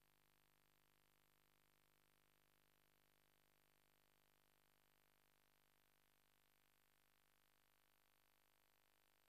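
Near silence: only the faint hiss of the recording's noise floor.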